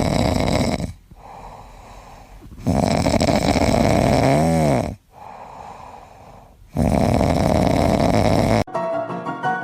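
A pet snoring loudly: three long, noisy snores about three seconds apart with quieter breaths between, one with a wavering whistle in it. Music starts near the end.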